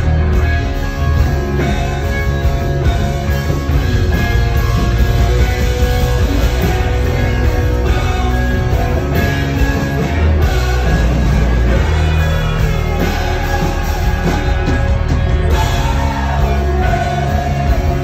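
A live rock band playing loud through the PA, with electric guitars, bass and drums, heard from in front of the stage.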